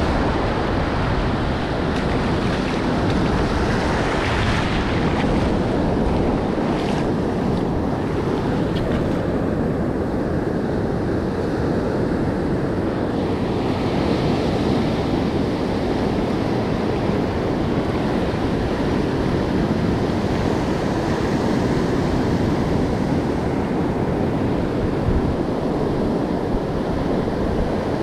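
Ocean surf breaking and washing up over the sand, with wind buffeting the microphone as a steady low rumble. The wash swells louder about four seconds in and again about halfway through.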